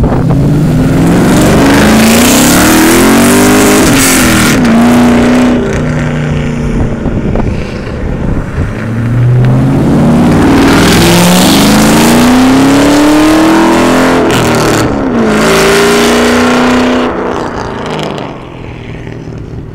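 Ford Mustang GT's V8 roaring under hard acceleration. The revs climb and fall back several times as the car pulls past, and the sound fades as it drives away near the end.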